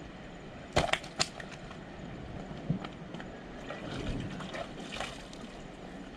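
A freshly caught fish put down on rock: two sharp knocks about a second in, then a few lighter taps, over the steady wash of the sea.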